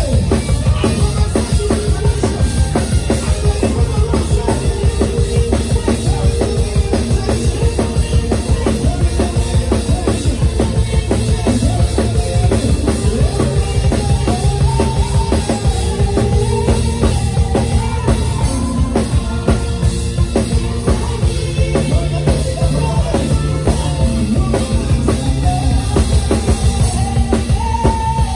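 A live praise band playing an instrumental groove: a drum kit with a steady bass-drum beat drives it, over a bass line and melodic lines.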